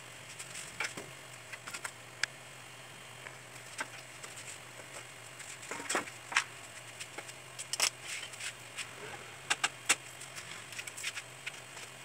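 Irregular metallic clicks, clinks and knocks from handling the sheet-metal panels and parts of an old Winia air-conditioner condenser being taken apart, over a steady low hum.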